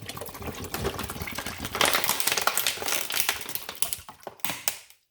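Rapid plastic clicking and rattling as the espresso machine's water reservoir is handled for refilling, loudest in the middle and fading out near the end.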